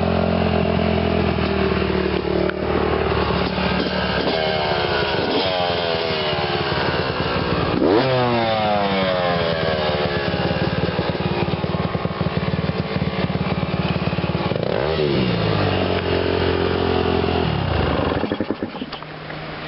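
Yamaha 250 motocross bike engine idling, then revved in several blips; the sharpest and loudest comes about eight seconds in. The engine sound cuts out near the end.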